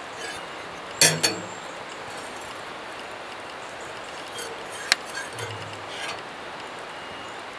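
Cookware and utensils clinking and knocking: a sharp double knock about a second in, a single sharp click near five seconds, and a few softer clinks, over a steady background hiss.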